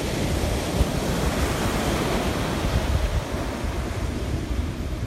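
Atlantic surf breaking on a sandy beach, a steady wash of waves, with wind buffeting the microphone.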